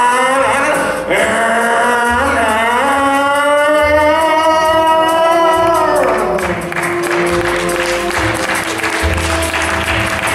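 Stage music with a singer holding one long note for about four seconds. About six seconds in the note ends and audience applause rises over the music, which carries on underneath.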